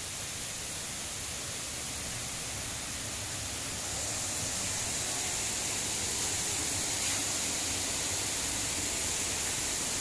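Steady rush of water flowing down a stone-walled stream channel with a small cascade, growing louder about four seconds in.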